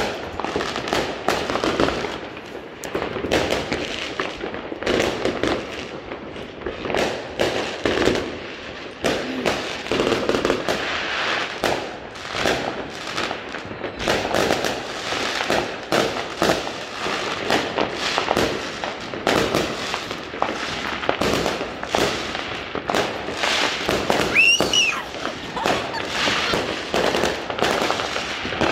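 Fireworks bursting overhead: a dense, continuous run of bangs and crackles, many close together, with a brief high whistle about three-quarters of the way through.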